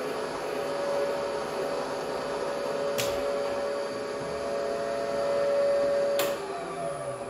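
Bridgeport J-head milling machine running with a boring head in the spindle: a steady motor hum, with a sharp click about three seconds in. Near the end another click comes and the hum dies away, its pitch falling as the spindle winds down.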